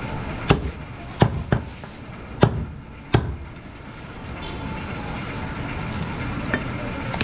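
Five sharp chops of a heavy butcher's chopping knife through goat meat into a wooden chopping block, all in the first three seconds, with a steady background din behind them.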